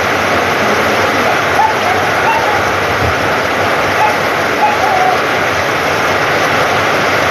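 Heavy downpour: a steady, dense hiss of rain falling on wet ground and a corrugated metal roof. A few short high-pitched cries rise above it now and then.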